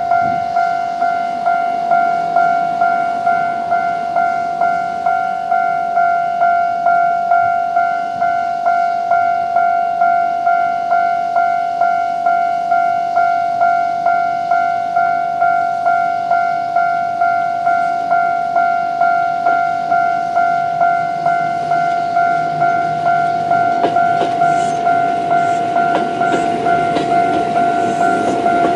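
Japanese level-crossing warning bell ringing steadily, an electronic ding repeated a little under twice a second. In the last few seconds a Choshi Electric Railway 2000-series electric train comes up to the crossing and its wheels start to clatter over the rails.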